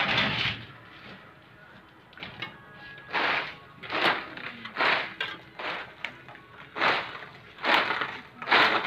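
A mason's trowel scraping and throwing cement mortar in repeated strokes, about one a second, with a louder stroke at the start, over faint background music.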